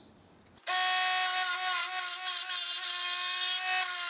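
A 24 V DC mini lathe's motor starts suddenly about half a second in and runs with a steady whine. A hand chisel scrapes at the spinning wooden blank in irregular strokes, turning it down.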